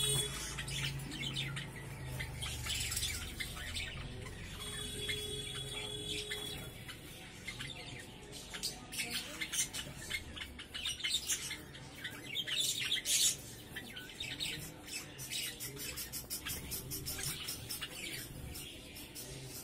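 Sparrows chirping, many short, high chirps in quick succession, busiest around the middle. A brief steady tone sounds about five seconds in.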